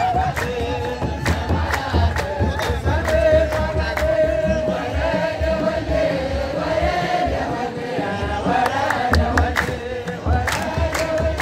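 A crowd singing a religious hymn in chorus, with drum beats and hand claps keeping time.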